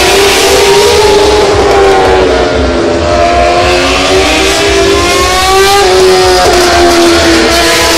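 Racing motorcycle engines screaming at high revs, their pitch climbing and dipping with throttle and gear changes, with a sharp drop in pitch about six seconds in.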